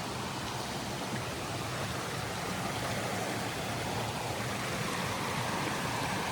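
Creek running high after heavy rain: a steady noise of flowing water.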